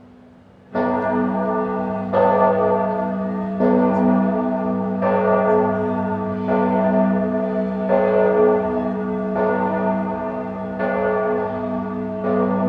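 Church bells ringing: after a faint lingering hum, a strike comes just under a second in and then about every second and a half, nine strikes in all, each ringing on into the next.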